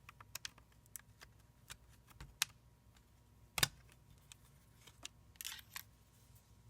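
Faint, scattered small clicks and taps of hands and a tool on the small parts inside a MacBook Air, as a thin cable is freed from its connector, with one sharper click about three and a half seconds in.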